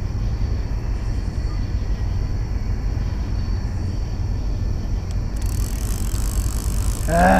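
Steady low rumble throughout. From about five and a half seconds in, a conventional casting reel is cranked to wind the line in, adding a higher whir over the rumble.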